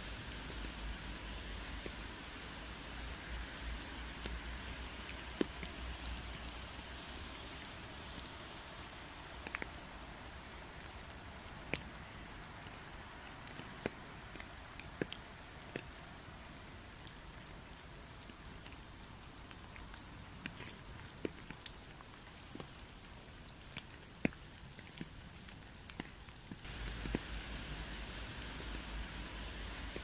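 Steady rain falling, with scattered individual drops hitting close by as sharp taps. A low rumble under the rain drops out several seconds in and returns abruptly near the end.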